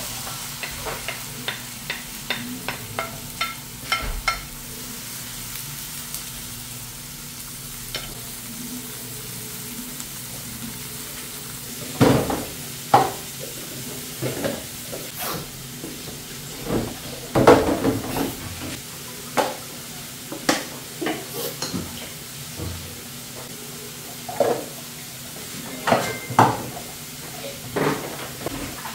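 Diced onion and tomato sizzling in a frying pan, with a wooden spoon scraping and tapping in quick light clicks at first. From about twelve seconds in come louder, irregular clinks and knocks of cups and dishes being washed in a steel sink.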